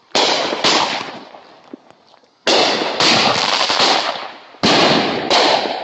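Fireworks going off: six loud bangs in three pairs, about half a second apart within each pair, each bang dying away over about a second.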